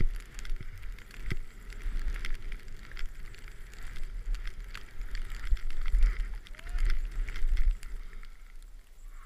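Skis hissing through soft snow while wind buffets the action camera's microphone in gusty low rumbles, with scattered small clicks and knocks from the skis and camera mount.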